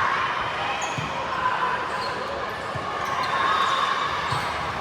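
Volleyballs thumping on a gym floor, one bounce every second or two, over a steady background murmur of people in a large hall.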